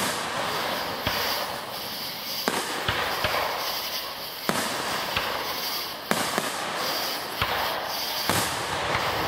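Aerial fireworks shells bursting one after another, a sharp bang every second or so over a steady hiss.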